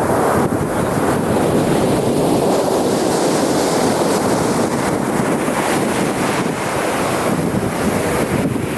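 Sea waves breaking and washing on a beach in a steady surf, with wind buffeting the microphone.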